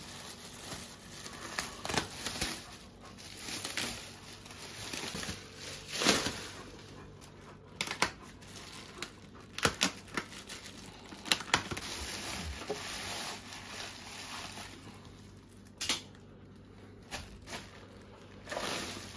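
Clear plastic wrap crinkling and tearing as it is pulled off a tower speaker, with irregular sharp crackles and snaps.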